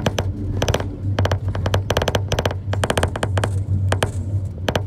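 Steady low hum of a moving vehicle's engine heard from inside, with irregular sharp rattling clicks several times a second.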